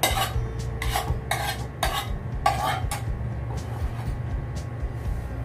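Metal spoon scraping and stirring in a wok of cooking oil, about five scrapes in the first three seconds, then quieter.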